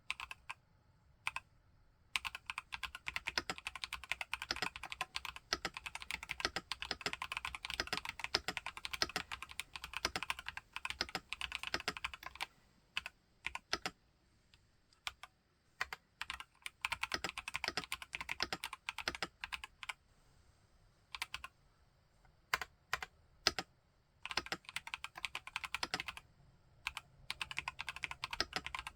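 Typing on an IQUNIX Q66 mechanical keyboard with TTC Holy Panda tactile switches: fast runs of keystrokes broken by pauses and a few single key presses.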